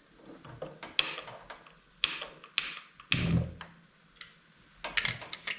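A few sharp, irregularly spaced clicks and light knocks at a gas stove as the burner is turned back on to heat the egg pan, with a quick run of clicks near the end.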